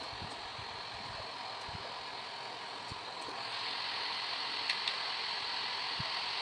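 Steady hiss of background room noise that gets a little louder about halfway through, with two light clicks close together near the end.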